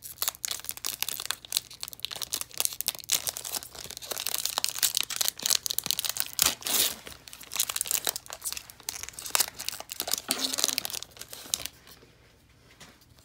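Foil wrapper of a 2021 Score football card pack being torn open and crinkled by hand: a dense run of crackling that stops about a second and a half before the end.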